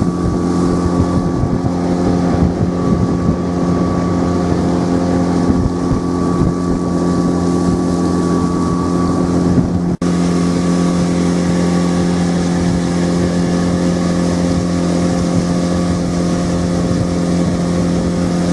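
Mercury 20 EFI four-stroke outboard motor running loud and steady at constant speed as the boat travels, with wind buffeting the microphone. There is a brief break about ten seconds in, and then the same sound continues.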